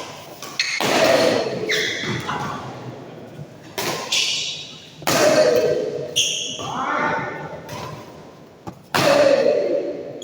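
Badminton play: sharp racket strikes on the shuttlecock and thuds on the court, four or five loud hits spread irregularly, each ringing on in the hall's echo.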